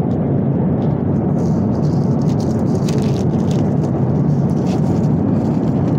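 Airliner cabin noise in flight: a steady low rumble of engines and airflow. Over it, the paper wrapper around a sandwich crinkles between about one and a half and three and a half seconds in.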